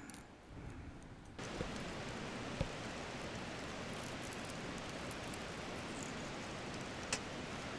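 Pork frying in a pan with no added oil, sizzling steadily in its own fat. The hiss comes in suddenly about a second and a half in, with a couple of sharp pops.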